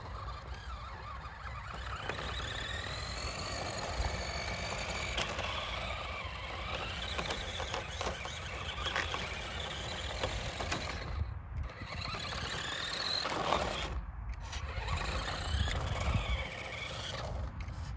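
Revell Control Desert Rat 1:10 electric RC car driving, its motor whining up and down in pitch as it speeds up and slows. Wind rumbles on the microphone underneath.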